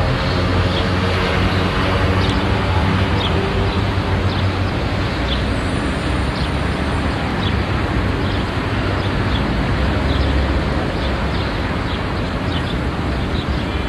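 Outdoor ambience: a steady rush of road traffic, with an engine hum over the first few seconds, and short high bird chirps scattered through it.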